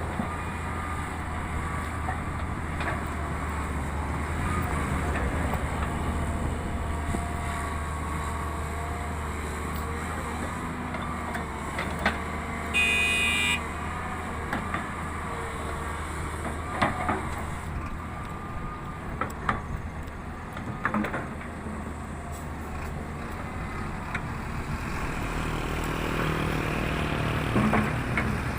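Heavy diesel machinery, a wheeled excavator working beside a dump truck, running with a steady low engine drone. About halfway through, a short horn toot sounds. Several sharp knocks follow in the second half.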